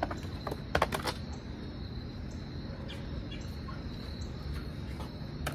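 Latex balloons being handled and stretched, giving a few short, sharp rubbery squeaks and clicks in the first second or so and once more near the end, over a steady faint high-pitched outdoor hum.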